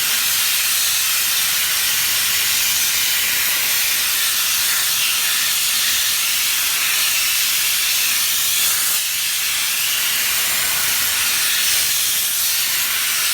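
Steady high-pressure spray hissing as the removed car air-conditioning evaporator core is cleaned.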